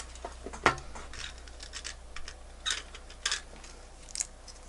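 A handful of light clicks and short scratchy rustles from handling small battery packaging while a 321 button-cell watch battery is picked out from a stock of spares. The sharpest click comes just under a second in.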